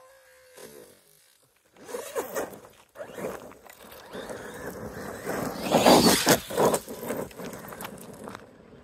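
Traxxas Maxx 6S RC truck running over loose gravel, its tyres scrabbling in rasping, scraping bursts that start about two seconds in and are loudest around six seconds in.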